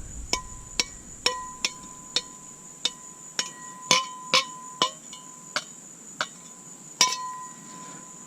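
Metal being struck with a string of light, sharp taps, about two a second, many of them leaving a short ringing note. A steady high insect-like drone runs underneath.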